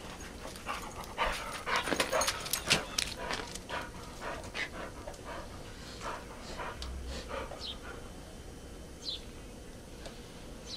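Dogs panting and scuffling in snow: a quick run of short breathy, crunchy strokes in the first few seconds that thins out after that. A few faint short high chirps follow later.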